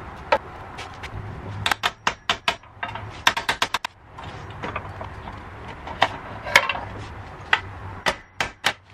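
Irregular sharp clicks and clinks of hand tools and metal hinge parts being handled. Some come in quick clusters, over a low steady hum.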